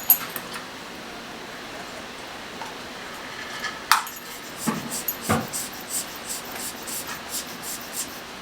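Small clicks and light taps of metal tools and parts on a workbench, with a couple of duller knocks about five seconds in and a run of quick light ticks after them.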